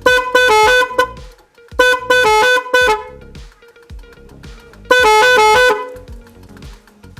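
Volkswagen Polo car horns driven by an electronic melody maker, each press sounding a quick tune of stepped horn notes. There are three bursts of about a second each.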